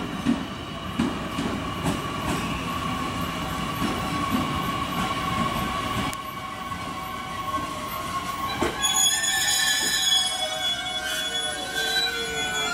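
JR Kyushu 813 series electric train pulling in and braking: its wheels click over the rail joints under a steady whine. About nine seconds in come high, wavering squeals as it slows to a stop.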